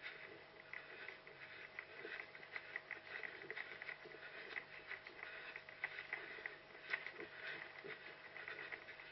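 Footfalls and rustling of a running orienteer, picked up by a head-mounted GoPro: an irregular patter of soft crunches and brushing through vegetation, with a faint steady hum underneath.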